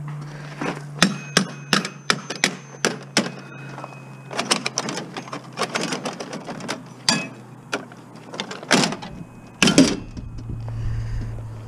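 Irregular clicks, knocks and rattles of metal parts being handled as the wiring and switches are stripped out of a scrap stove, over a steady low hum.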